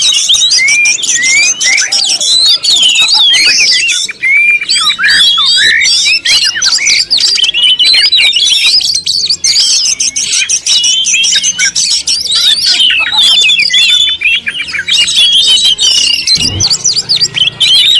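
Many birds chirping and squawking at once in a dense, unbroken chorus, with a brief low thump near the end.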